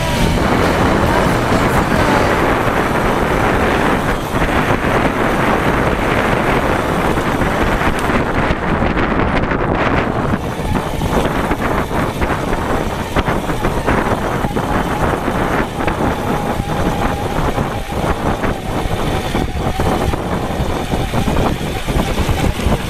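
Wind buffeting the microphone and tyre rumble from an electric mid-drive mountain bike riding fast over a dirt trail, loud and steady, with rattles and knocks from bumps in the second half.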